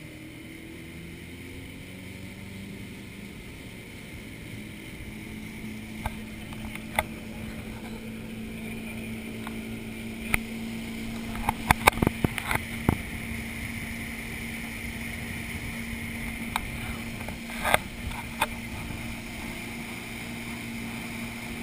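Motorboat engine running under way, its pitch rising over the first few seconds and then holding steady at towing speed. Sharp knocks come now and then, in a cluster about halfway through and again later.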